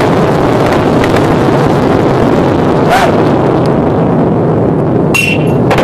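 Continuous loud roar of a huge weapons-depot explosion, with sharp cracks of secondary blasts about three seconds in and again just after five seconds.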